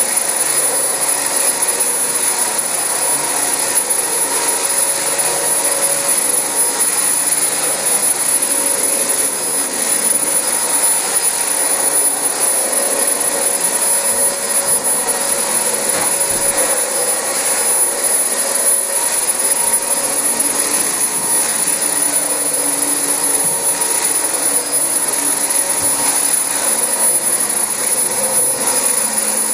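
Dyson DC25 ball upright vacuum cleaner running steadily while vacuuming carpet: a constant motor rush with a steady high-pitched whine.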